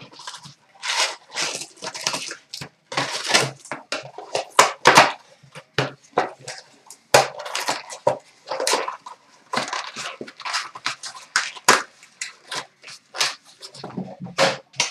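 Foil hockey-card pack wrappers and box cardboard crinkling and tearing as the packs are ripped open, in quick irregular crackling bursts.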